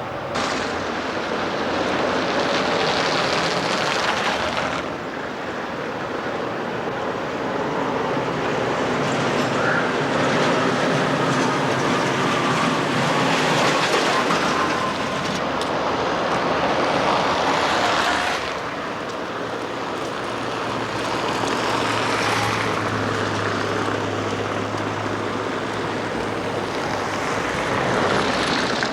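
Street traffic: vehicles passing one after another, with a tram among them, each pass swelling and fading over a few seconds. A faint held whine comes in around the middle, and a low steady hum near the end.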